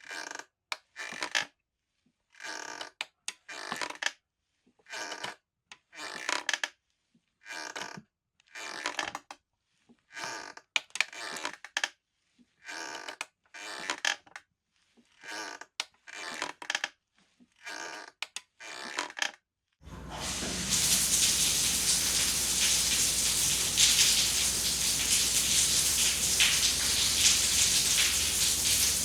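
A short rasping noise, repeated about once a second with silence between, then from about twenty seconds in a steady hiss.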